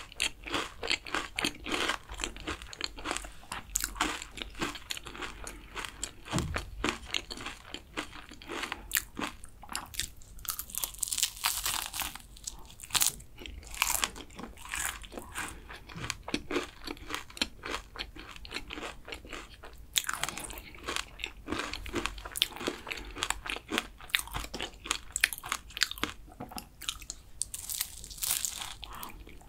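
Close-miked biting, crunching and chewing of a flaky, caramelized kouign-amann pastry: a dense run of crisp crackles, with louder clusters of crunching now and then.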